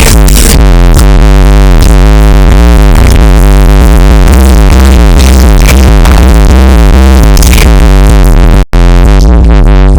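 Electronic music with a heavy, constant bass line, played very loud through a car stereo with a subwoofer box tuned to 38 Hz, loud enough to overload the recording. The sound drops out for an instant near the end.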